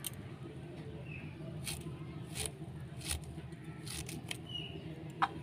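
Carrot being sliced on a boti, the Bengali curved floor blade: a short crisp cut about once a second, over a low steady hum.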